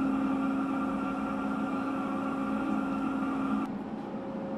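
Steady machinery hum in an aircraft carrier's hangar, several steady tones over a low rushing noise. The higher tones cut off a little over three and a half seconds in, leaving the lower hum.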